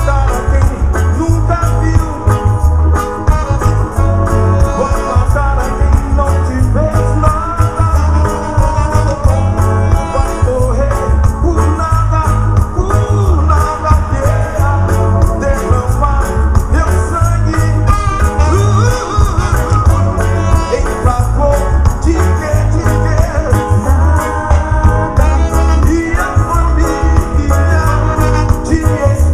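Live reggae band playing with a male lead singer, dominated by a heavy, pulsing bass under a steady beat.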